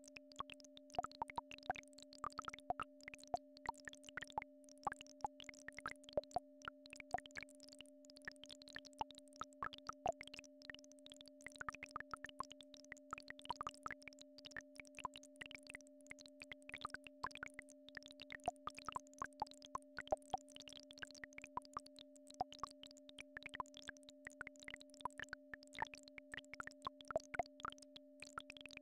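Steady electronic healing-frequency tones, a low hum with a fainter tone about an octave above it, under a continual scatter of short, irregular clicks and pips like dripping water.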